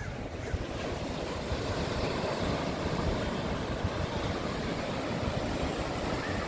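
Surf breaking on a sandy beach, a steady rush, with wind buffeting the microphone as an uneven low rumble.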